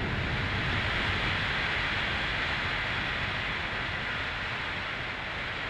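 Compressed-air abrasive blasting from the ReCo-Blaster robot's nozzle: blast media jetting against a steel workpiece, a steady, even hiss over a low rumble.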